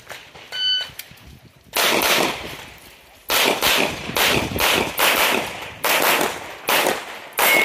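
A shot timer's start beep about half a second in, then a fast string of handgun shots from about two seconds in, many of them fired in quick pairs.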